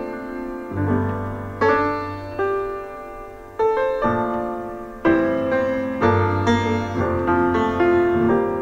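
Jazz-and-blues piano music: struck chords with low bass notes, played back through a JBL Flip 3 portable Bluetooth speaker as a sound test.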